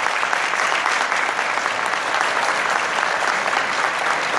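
Audience applauding steadily: many people clapping at once, a dense, even patter of hand claps.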